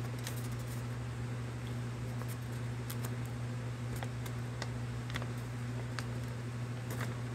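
A sheet of folded paper handled and held up, giving scattered short crinkles and clicks, over a steady low hum.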